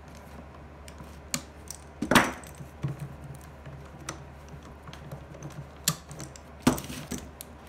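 Small bar clamps being loosened and taken off a glued-up wooden cutting board: scattered clicks and clacks of metal and wood, with a louder clack about two seconds in and another near the end.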